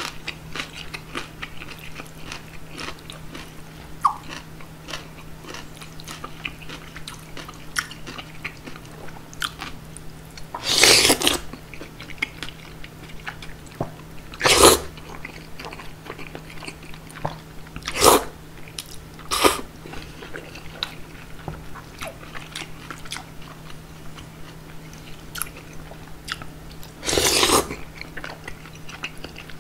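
Close-miked chewing and wet mouth clicks of someone eating cold bean-soup noodles (kongguksu). Five louder slurps of noodles come through: a longer one about a third of the way in, three short ones in the middle, and another long one near the end.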